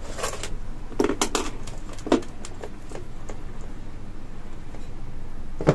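Hands handling electrical wires and small metal crimp connectors at a refrigeration compressor's terminals: a cluster of sharp clicks and clinks in the first second and a half, scattered lighter ticks after, and one more click near the end.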